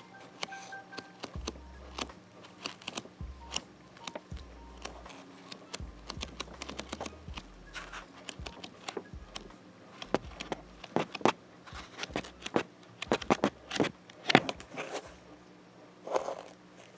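Pages of a paperback manga volume being flipped and handled close to the microphone: a quick, irregular run of paper clicks and rustles, busiest and loudest a couple of seconds before the end.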